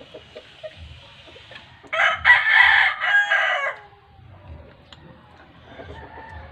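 A rooster crowing once, about two seconds in, a loud call lasting nearly two seconds.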